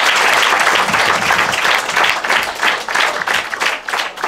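Audience applauding, a dense wash of clapping that thins out into scattered separate claps in the last second or so.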